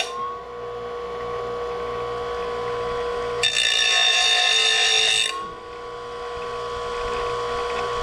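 Electric grinder running freely, then a mower blade's steel edge pressed against the wheel for about two seconds, a loud grinding hiss, starting about three and a half seconds in. The motor's whine dips under the load and rises again once the blade is lifted off.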